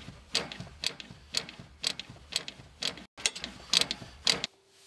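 AEC Routemaster bus brake pedal pumped again and again with the engine off, a sharp click with each press, about two a second, stopping near the end. Each press draws on the hydraulic brake accumulators. This bus runs them down after only eight presses, short of the twelve wanted, so its accumulators need recharging.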